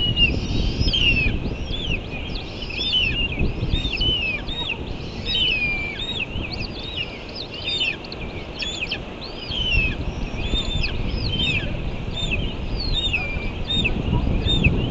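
A bird chirping over and over, about two sharp, arched chirps a second, above a low wind rumble.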